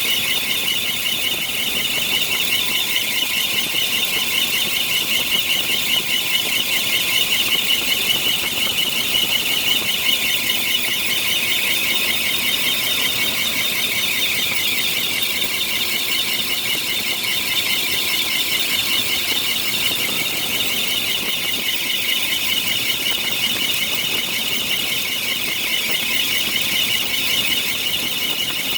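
Air-conditioning compressor on a 1993 Bentley Brooklands giving a steady, high-pitched squeal with a fast warble, which the owner takes for a bad compressor clutch bearing.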